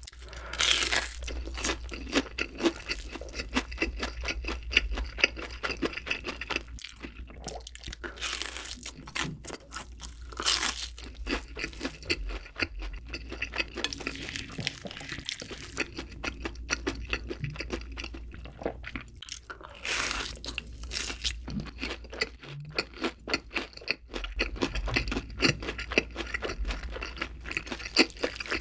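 Crunching bites into a deep-fried breaded pork cutlet (donkatsu), then crisp crackling chewing. A few bites stand out louder among the steady crunching.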